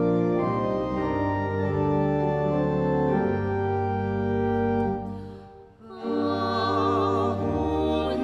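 Pipe or electronic church organ playing slow, sustained hymn chords. The chords stop briefly about five seconds in, then resume with a voice singing over them with wide vibrato.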